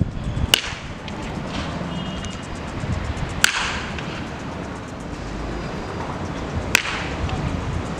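Baseball bat hitting tossed balls in batting practice: three sharp cracks about three seconds apart, the middle one loudest, over steady background noise.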